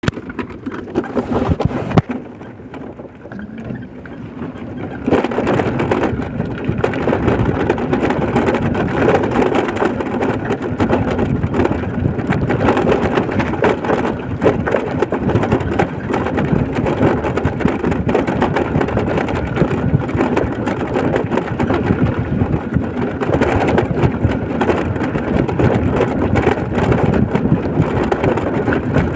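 A vehicle on the move: steady engine, tyre and wind noise, which dips for a few seconds near the start and then comes back loud at about five seconds in.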